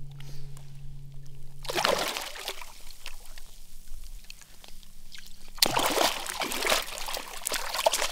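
Water splashing as a hooked speckled trout thrashes at the surface while being landed by hand at close range: a short burst about two seconds in, then a longer, louder spell of splashing from about five and a half seconds on.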